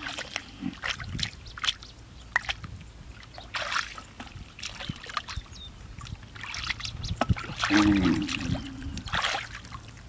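Hands groping and splashing in shallow muddy water: irregular splats, sloshes and squelches, with heavier splashing about four seconds in and again around eight to nine seconds.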